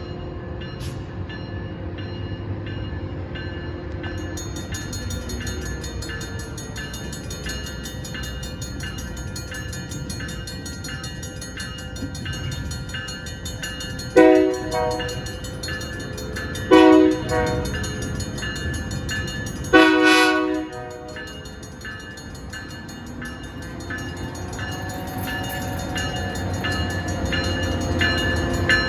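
Diesel locomotive horn sounding three blasts, two short and then a longer one, over the steady rumble of a moving train.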